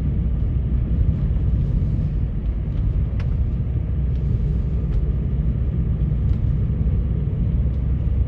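A car being driven: a steady low rumble of engine and tyre noise, with a faint click about three seconds in.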